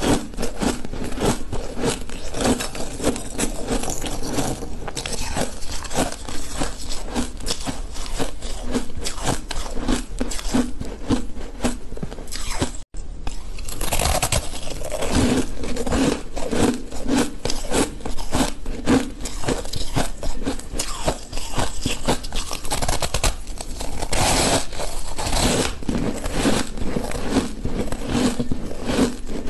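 A person chewing and crunching mouthfuls of ice, a dense run of crisp crunches picked up close by a lapel microphone, with one brief drop-out about halfway through.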